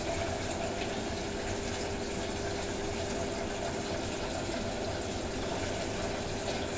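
Fish deep-frying in a pot of hot oil: a steady sizzle with a steady hum underneath.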